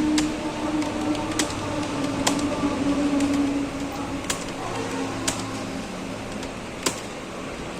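Scattered sharp clicks, roughly one a second, over a steady low hum: keys being struck on a computer keyboard.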